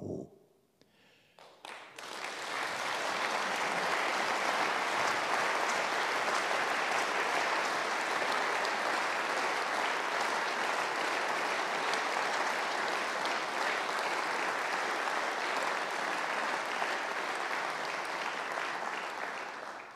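Audience applauding, building up about two seconds in, holding steady, and dying away near the end.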